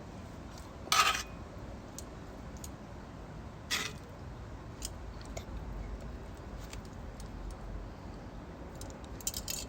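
A metal utensil clinking against dishes as vegetables are served: one sharp clink about a second in, another near four seconds, light taps between, and a quick run of clicks near the end.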